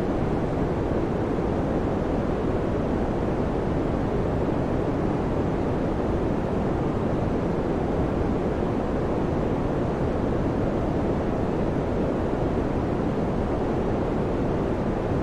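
Electric fan running, a steady even whooshing hum of moving air, strongest in the low and middle range with little hiss, with no changes.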